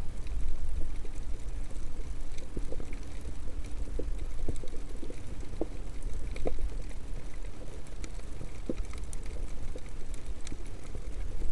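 Underwater ambience on a rocky reef: a steady low rumble with scattered faint clicks and crackles.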